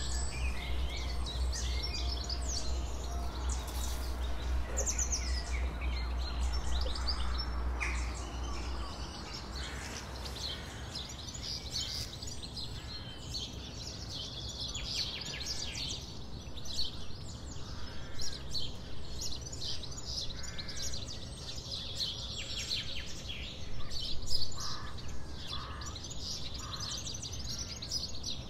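Many wild birds singing and chirping together, a dense chorus of short high chirps and trills, with a few lower, louder notes near the end. A low rumble underlies the first third and stops.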